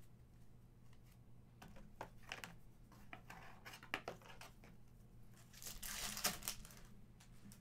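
Foil wrapper of an Upper Deck Aliens trading card pack crinkling as it is handled, then tearing open, the loudest rip about six seconds in.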